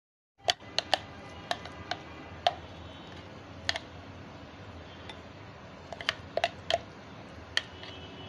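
Metal spoon clinking and tapping against a plate and bowl while minced chicken filling is scooped out, about a dozen sharp irregular taps over a steady background hiss.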